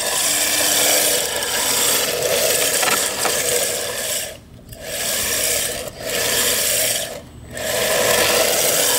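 3Racing RC drift car driving on coarse asphalt: a continuous rasping scrape of its hard drift tyres on the rough surface along with its small electric motor, the sound dropping away briefly twice in the second half.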